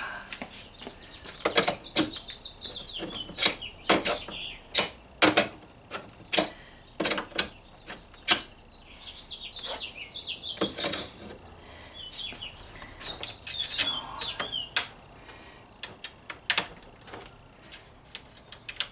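Irregular sharp clicks and knocks of hand tools and metal as a VW Beetle door hinge is worked into place, with a bird chirping in quick runs in the background.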